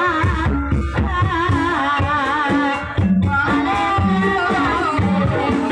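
Live campursari music accompanying an ebeg horse dance: regular drum strokes and steady low notes under a singer's wavering melody, with a brief drop about three seconds in.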